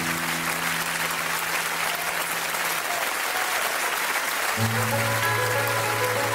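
Audience applauding over slow music with long held notes; a deeper sustained note comes in about two-thirds of the way through.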